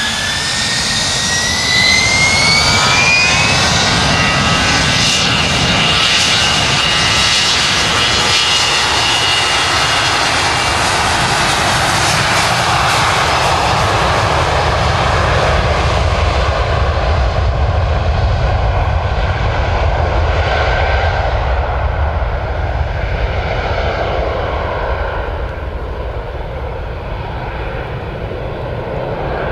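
The Bombardier Global Express's two Rolls-Royce BR710 turbofan engines spool up to takeoff thrust, a whine rising in pitch over the first few seconds. It becomes a loud, steady jet roar through the takeoff roll, then slowly fades and dulls in the second half as the jet climbs away.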